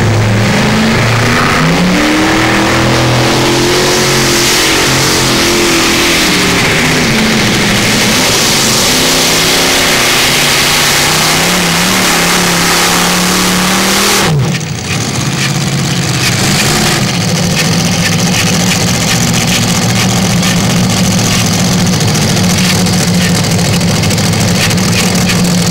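Multi-engine modified pulling tractor running at full throttle during a pull, its engine note rising and falling. About 14 seconds in, it changes abruptly to the engines running steadily at an even speed.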